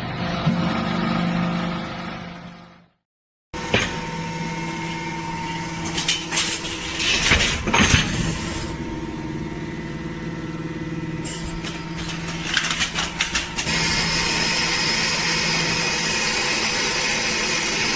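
Hydraulic metal baler running with a steady hum from its hydraulic power unit, with bursts of clatter and crunching as scrap aluminum cans are pressed. The sound fades out to a brief silence about three seconds in, then the machine resumes, and a louder rushing noise joins the hum in the last few seconds.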